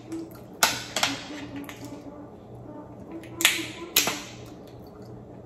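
Snow crab leg shells cracking sharply four times, in two pairs: one pair about half a second in and another about three and a half seconds in.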